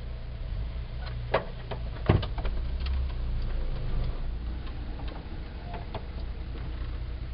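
Steady low engine drone heard inside a moving VW bus's cab, with scattered clicks and rattles and one louder knock about two seconds in.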